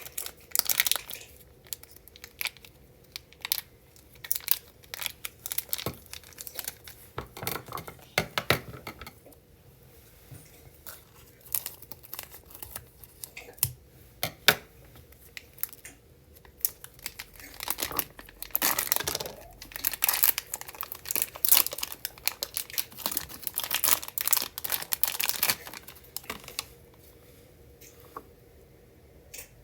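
Banana pudding scented slime being stretched, torn and squished by hand, giving irregular clusters of crackles and sticky pops that thin out near the end.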